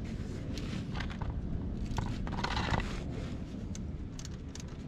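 Ratchet and socket clicking and scraping on a bolt under a motorcycle's engine, in scattered short clicks with a longer scrape about two and a half seconds in, over a steady low rumble.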